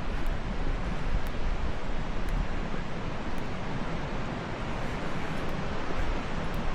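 Steady rushing roar of a large waterfall in heavy flow, with wind buffeting the microphone.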